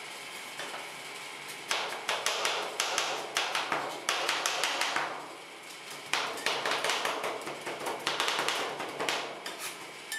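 Two metal ice-cream-roll scrapers chopping pineapple on a steel cold plate: a rapid clatter of blades striking the metal plate through the fruit. It starts about two seconds in, stops briefly near the middle, then goes on again.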